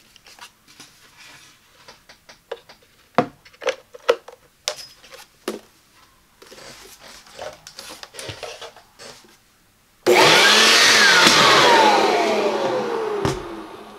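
Hard plastic clicks and knocks as the Black+Decker LB700 corded electric leaf blower is handled. About ten seconds in its 7-amp motor switches on with a loud rush of air and a whine that climbs quickly, then slides steadily down, and the blower cuts off near the end.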